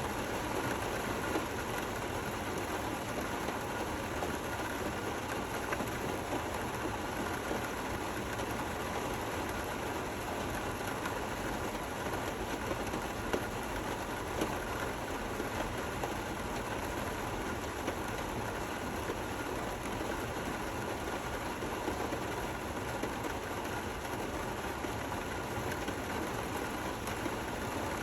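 Gentle, steady rain falling: an even hiss with a few slightly louder drops here and there.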